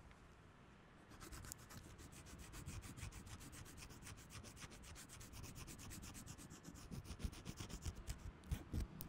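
Dense, scratchy crackling made of many fine clicks, starting about a second in and growing slowly louder, with a few sharper clicks near the end.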